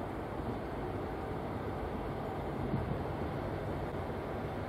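Electric freight train running on the tracks: a steady low rumble without horn or other distinct events.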